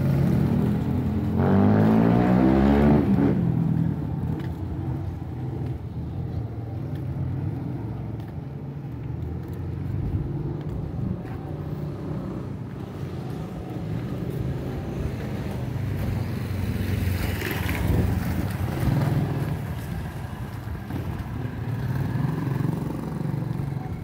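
A small motorcycle passing close by on a cobbled street, its engine loudest and its note shifting about two seconds in, then fading. A steady low rumble of street traffic follows, with another vehicle swelling past a little past the middle.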